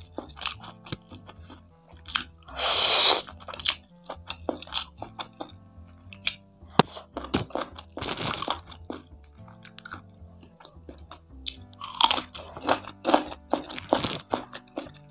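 Close-miked chewing and crunching of fried chicken with crispy kremes crumbs and rice, with many small crunches and two longer, louder crunchy bursts about three and eight seconds in, over quiet background music.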